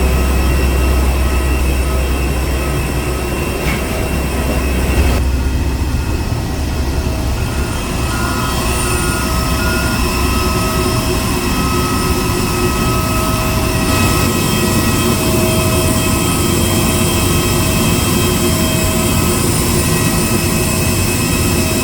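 Steady cabin noise of an Airbus A320 taxiing after landing: a low engine rumble, strongest for the first five seconds, under several steady whining tones.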